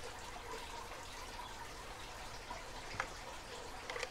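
Faint clicks from a tubular lock pick being handled, twice, about three and four seconds in, over a low steady hiss.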